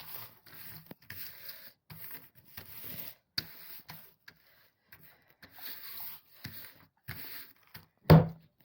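Faint, irregular rustling and scraping of things being handled, with a sharper, louder knock or rustle about eight seconds in.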